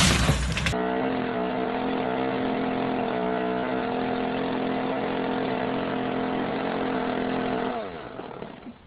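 Wood cracking and splintering, cut off suddenly within the first second. Then an engine runs at a steady speed for about seven seconds, and its pitch falls as it slows and fades near the end.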